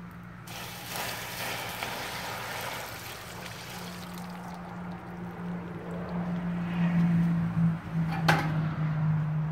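A bucket of water poured onto a burning lithium-polymer (LiPo) battery: a splashing rush of water starts about half a second in and lasts about four seconds. A steady low hum runs underneath and grows louder later, and a sharp click comes near the end.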